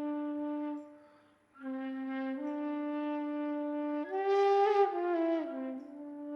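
Slow meditative instrumental music: a single wind instrument holding long, sustained notes. It breaks off briefly about a second in, then comes back and swells to a louder, higher note past the middle before settling back down.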